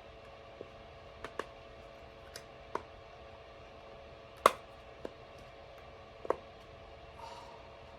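Hedgehog dimple fidget toy, its silicone bubbles pressed one at a time: about eight sharp pops at uneven intervals, the loudest about halfway through.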